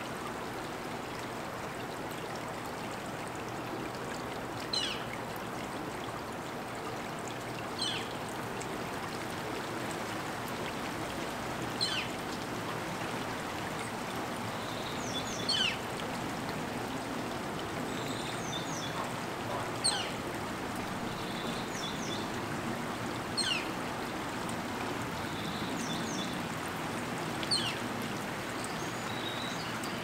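Steady rain falling, with a bird's short, sharp falling call repeated every three to four seconds and a few fainter chirps in between.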